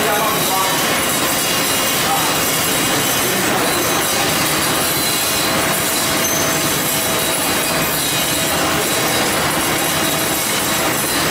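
Popcorn processing line running: a steady, dense mechanical rattle and rubbing noise from the inclined cleated belt conveyor and rotating sifter drum as they carry popped corn.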